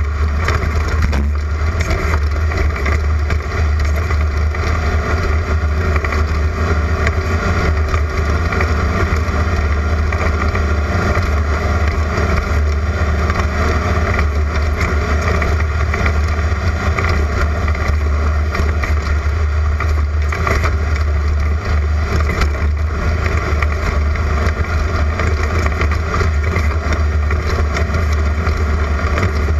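Class 11 Volkswagen Beetle race car's air-cooled flat-four engine running hard at a steady pace, a loud continuous drone with wind and terrain noise.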